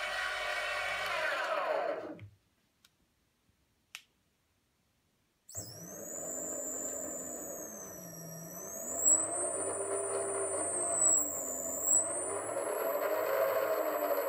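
Brushless electric-skateboard motor driven by a VESC speed controller, spinning with no load. It winds down and stops about two seconds in, then starts suddenly again a few seconds later. Its whine and a high electronic tone rise and fall as the remote's throttle is worked, with a few sharp ticks near the middle.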